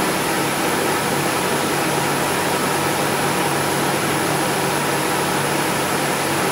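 Steady mechanical hum with a hiss, level and unchanging, with no distinct clicks or knocks.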